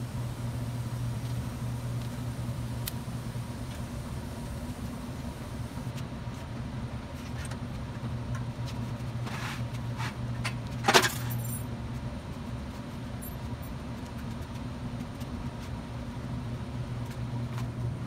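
TIG welding on a steel post over a steady low hum: the thin hiss of the arc stops about six seconds in. Then come a few metallic knocks as the steel is handled, the loudest a sharp clank about eleven seconds in.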